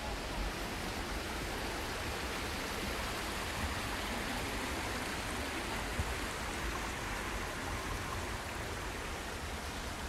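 Steady hiss of outdoor ambience with an uneven low rumble underneath, and no distinct sounds standing out.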